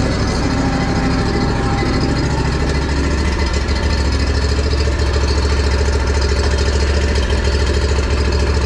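Engine of a Toro stand-on mower running steadily with a deep, even hum while the mower is driven onto the truck, the low hum growing a little stronger about three and a half seconds in.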